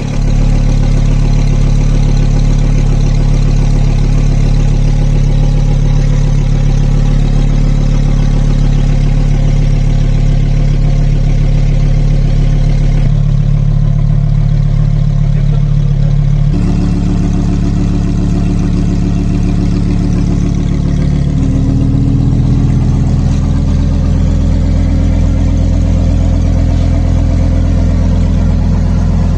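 Lamborghini Huracán STO's 5.2-litre V10 idling steadily and loudly through its exhaust. The idle note steps to a slightly different pitch twice in the second half.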